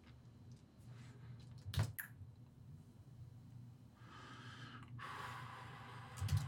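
Steady low hum of a quiet room, with one sharp click about two seconds in and a soft, drawn-out breath about four seconds in.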